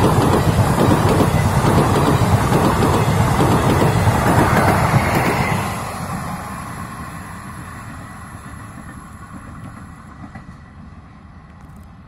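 Passenger train coaches rolling past at speed: a loud, steady rumble and clatter of wheels on rails. The last coach passes about halfway through, and the sound then fades away as the train recedes.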